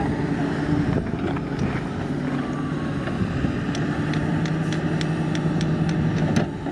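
Komatsu hydraulic excavator's diesel engine running with a steady low hum, with a scatter of sharp clicks in the second half.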